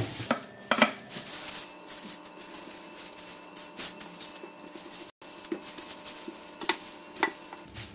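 Plastic bag crinkling and rustling as a wooden rolling pin rolls out dough inside it, with a few sharp clicks and knocks: the loudest about a second in and a couple near the end. A faint steady hum runs underneath.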